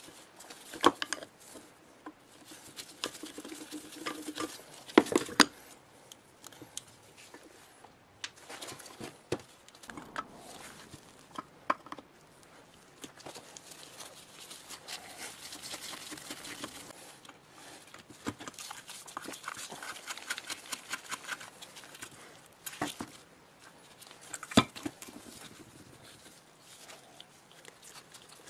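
Hand tools and metal parts being handled on a rusty old electric motor housing: scattered sharp metallic clinks and knocks, with two stretches of scraping as the corroded casting is cleaned.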